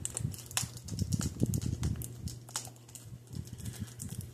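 Fingers picking at the plastic shrink-wrap on a Blu-ray case: scattered light clicks and small crinkles of plastic.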